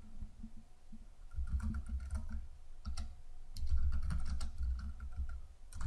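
Typing on a computer keyboard: two runs of keystrokes, the first starting about a second and a half in, the second about three and a half seconds in.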